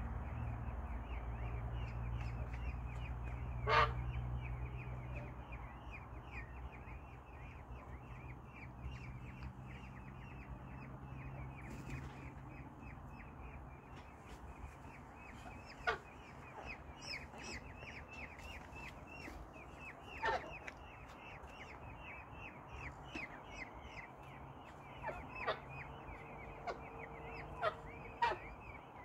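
Peafowl at roost giving short calls several times, most often near the end, over a constant high chirping in the background. A low hum fades out over the first half.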